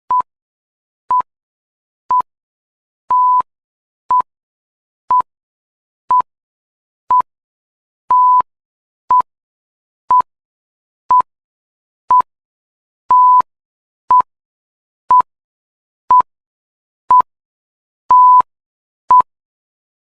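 Electronic countdown timer beeping once a second on one steady high tone, every fifth beep held longer, ticking off the answer time.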